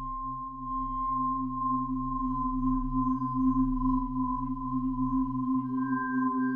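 Ambient drone score of held pure tones: a high steady tone and a lower hum over a deep rumble, slowly swelling. A still higher note and a middle note join near the end.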